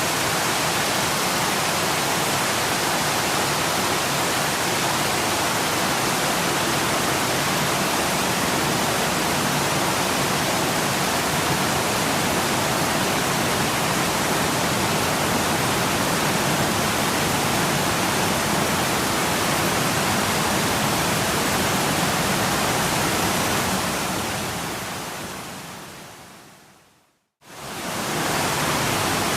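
Waterfall: a steady rush of falling water. About three-quarters of the way through it fades out to a moment of silence, then fades quickly back in.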